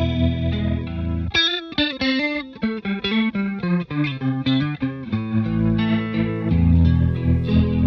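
Fender Stratocaster electric guitar played through a TC Electronic JUNE-60 analog (bucket-brigade) chorus pedal, modelled on the Roland Juno-60 chorus. Chords ring out, then a phrase of single picked notes runs from just over a second in to about five seconds, and the chords swell back in.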